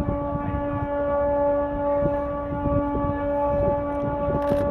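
A ship's horn sounding one long, steady blast at a single pitch that starts abruptly and holds throughout.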